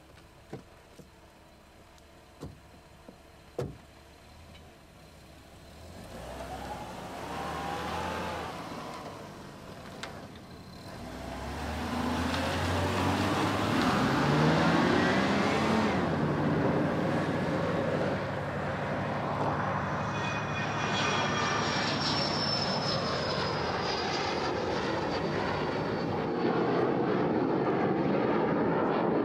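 A few faint clicks, then a vehicle engine grows louder from about six seconds in and runs loudly to the end, its pitch rising and falling.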